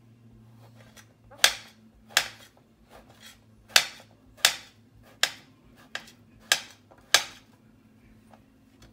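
Chef's knife chopping through king oyster mushrooms and striking a glass cutting board: about eight sharp clacks, roughly one every 0.7 seconds, starting about a second and a half in.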